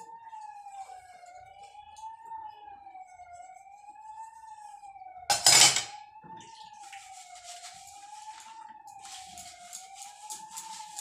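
Stainless-steel dishes being washed: a loud clank of metal about halfway through, then rapid scrubbing strokes on steel. Under it a siren-like tone wavers steadily up and down about every two seconds.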